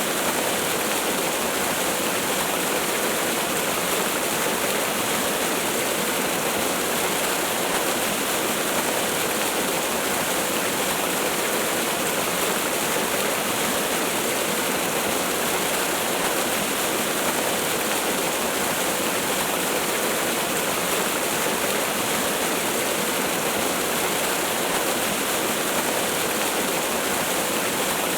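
Waterfall rushing with a steady, unbroken noise of falling water.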